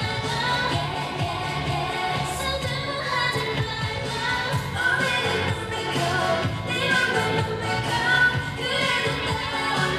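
K-pop song played live: singing over a pop backing track with a steady beat.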